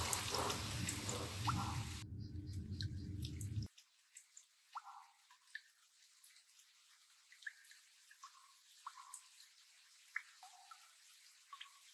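A dense rushing noise that cuts off abruptly about three and a half seconds in, followed by water dripping: scattered single drops at irregular intervals, one or two a second.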